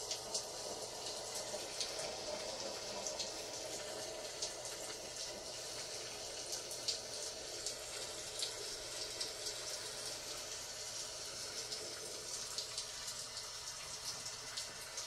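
Steady rain: an even hiss dotted with many small, sharp ticks of drops.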